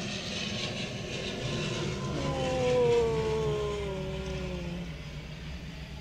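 Turboprop airliner passing low overhead as it comes in to land: a propeller drone that swells to its loudest about halfway through and falls steadily in pitch as the plane goes by, then fades.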